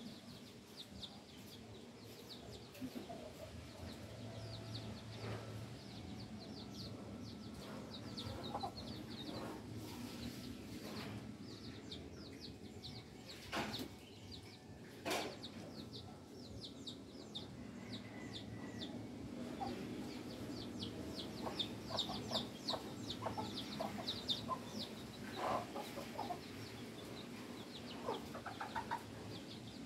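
Chickens clucking and small birds chirping in quick, high notes, with two sharp knocks about a second and a half apart midway.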